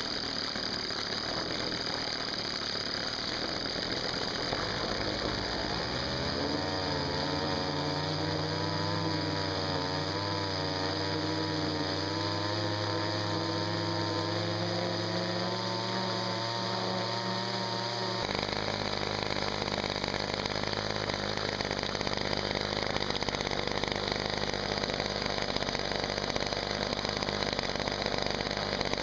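Ryobi string-trimmer two-stroke engine, rigged as a small boat motor, running hard under load as its propeller churns water in a tub. Its pitch wavers up and down through the middle, and the sound shifts abruptly about two-thirds of the way in.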